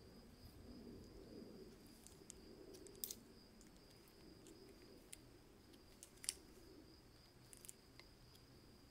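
A few faint, sharp metallic clicks as a small slotted screwdriver bit meets and turns a tiny screw on a brass lighter's lever arm, the sharpest about six seconds in, over a faint steady high whine.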